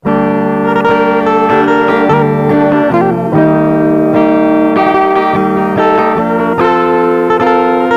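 Electric guitar playing a melody, notes held and running into one another, cutting in abruptly at the start.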